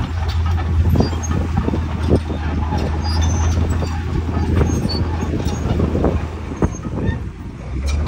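Komatsu D65E crawler dozer's diesel engine running steadily as it pushes beach sand, with its steel tracks clanking and knocking.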